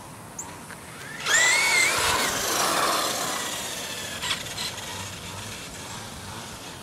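Radio-controlled truck accelerating along an asphalt road: about a second in its motor whine starts suddenly and rises in pitch, with tyre noise, then both slowly fade as it runs away.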